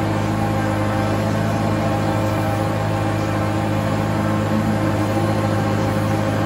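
Tractor engine running at a steady speed, with a strong low hum, while the feed mixer wagon it pulls is taken out to deliver the ration.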